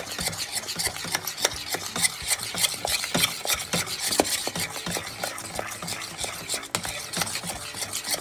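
A spoon stirring and scraping a thickening homemade processed-cheese mixture in a cooking pot, a steady run of quick scrapes and small knocks against the pot.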